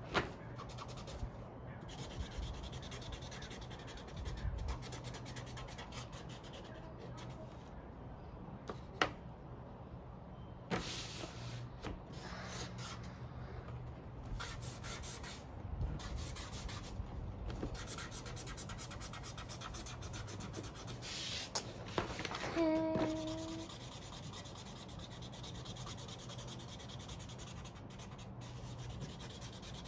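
Felt-tip marker scribbling back and forth on paper, colouring in, in spells of rapid strokes. A short pitched squeak about two-thirds of the way through.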